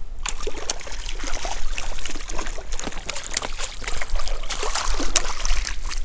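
A hooked trout splashing at the water's surface as it is reeled in close: a dense, continuous run of small splashes.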